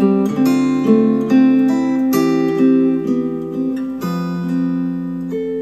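Acoustic guitar music played back through hi-fi bookshelf speakers: plucked and strummed chords ringing on, with a new chord every second or two.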